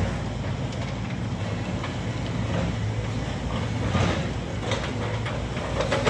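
Tracked excavator's diesel engine running steadily under load, with scraping and clanking of rubble in its bucket, loudest about four seconds in.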